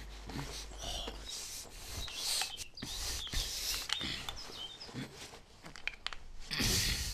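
Irregular scraping and rubbing as a man struggles to force the crown cap off a glass beer bottle with his bare hands, his leather jacket sleeves rubbing and creaking, with small clicks of metal on glass; the loudest scrape comes near the end.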